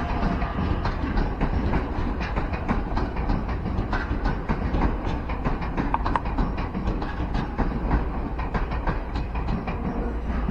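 Keio Inokashira Line electric train running by, with a steady rumble and a dense run of rapid wheel clicks over the rails.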